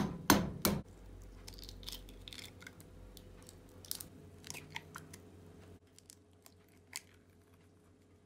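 Eggshells cracking on the rim of a bowl: a few sharp cracks at the start and just under a second in, then lighter clicks and crackles as the shells are pulled apart and the eggs dropped in, three eggs one after another.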